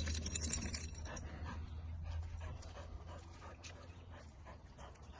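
A dog panting, with a brief rush of noise in the first second.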